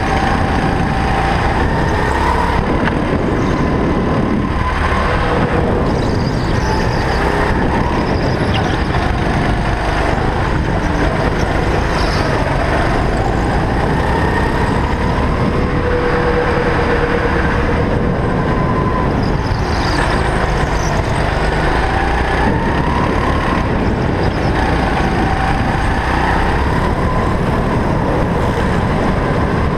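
Go-kart running at speed around a track, its drive note rising and falling in pitch as it slows for corners and accelerates out of them, over a steady rumble of tyres and wind.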